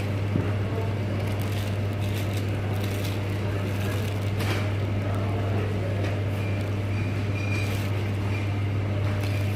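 Steady low hum of shop background noise, with a couple of brief rustles as the cellophane-wrapped goods and plush toys are handled.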